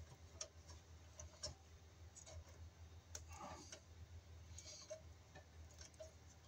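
Faint, irregular clicks and light scrapes from a plastic wire nut being twisted by hand onto stranded copper wires, over a steady low hum.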